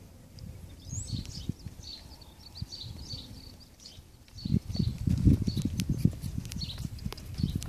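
Small birds chirping over and over in the background. About halfway in, low irregular thudding starts as the saddled pony moves off on the arena dirt, and grows louder towards the end.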